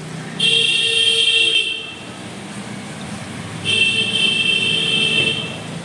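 Vehicle horn honking twice: two long, steady, high-pitched blasts, each about a second and a half, a couple of seconds apart.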